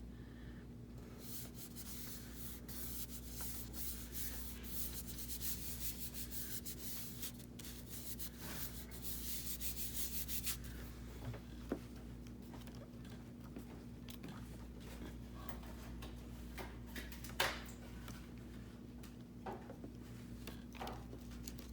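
Hands rubbing and smoothing paper, pressing a freshly glued piece of paper ephemera down onto a card, with soft rustles and small taps. The rubbing is densest in the first half and thins to occasional taps later, over a low steady hum.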